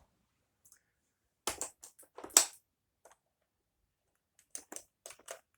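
Scattered plastic clicks and knocks from a vacuum cleaner being handled, with no motor running. A cluster comes about a second and a half in, the loudest about two and a half seconds in, then a few lighter ticks near the end.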